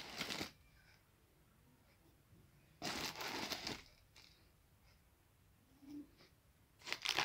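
A few short bursts of rustling and scraping from a metal spoon and a plastic tub of gram flour, as crushed red chilli is spooned in: one at the start, one about three seconds in lasting about a second, and another near the end.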